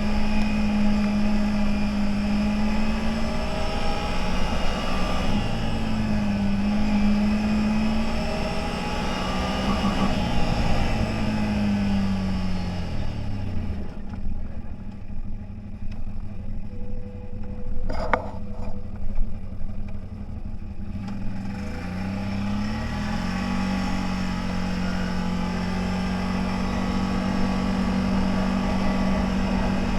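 CFMoto 1000 off-road vehicle's engine running under varying throttle, its pitch rising and falling. About halfway through it drops away to a quieter stretch with a single sharp click, then climbs back up and runs steadily to the end.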